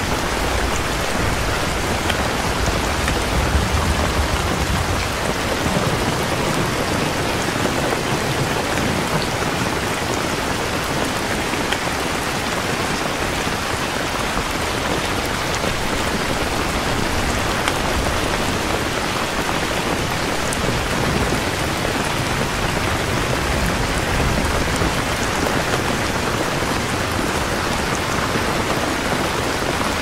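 Steady heavy rain falling, a dense even hiss of drops on a surface, with a low rumble of distant thunder in the first few seconds.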